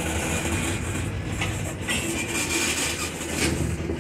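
Freight train tank cars rolling past over a road grade crossing: a steady rumble of wheels on rail, with a few sharp clicks as wheels pass over rail joints.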